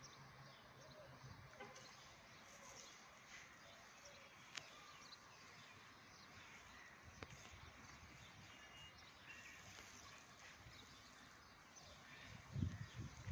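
Near silence: faint outdoor ambience with a couple of tiny clicks, and a few low thumps near the end.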